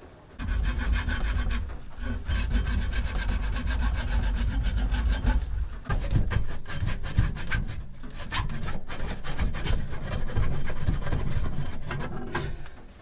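A hand saw cutting through a plastic drain pipe, steady back-and-forth rasping strokes. There is a short break about five and a half seconds in, then it resumes more unevenly.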